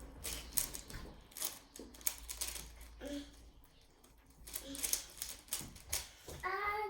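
Plastic Rubik's speed cube being turned by hand, irregular quick clicks of its layers snapping round as it is solved.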